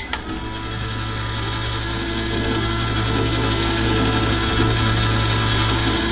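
Microwave oven running: a steady low hum with a whirring noise over it, growing slightly louder.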